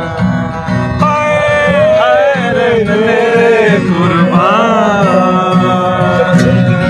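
Acoustic guitar strummed while a young man sings a Hindi song, with several men in the group singing along.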